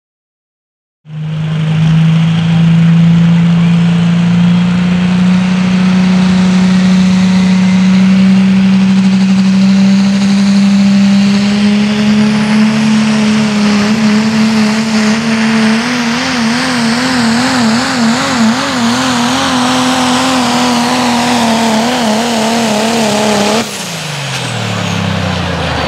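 Dodge Ram diesel pulling truck at full throttle, dragging the sled: a loud, steady engine note that climbs slowly in pitch and starts to waver about two-thirds of the way through. Near the end the throttle is lifted and the engine winds down sharply.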